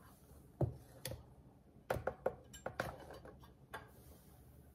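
Stainless steel measuring cup and plastic sugar canister knocking and clinking together as sugar is poured into the cup: a string of short light clicks, bunched about two to three seconds in.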